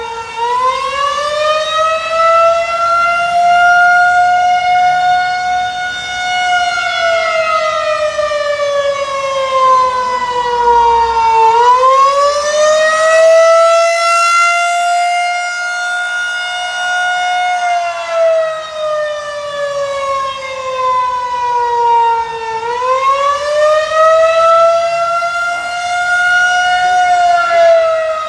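Federal Signal 2001-130 outdoor warning siren sounding during a test: one loud, steady wail that climbs in pitch, holds, then slowly sinks, repeating about every eleven seconds.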